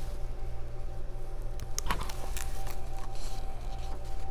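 Steady low hum of room tone, with a faint soft click or two from handling the pages of a hardcover picture book, one about two seconds in.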